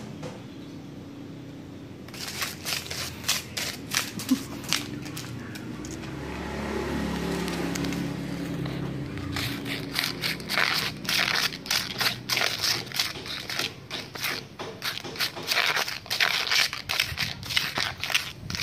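Dry leaves crackling and crunching as a toddler crumples them and presses and pushes them along concrete, in two stretches of rapid crackles, the longer one in the second half. A low steady hum sits in between.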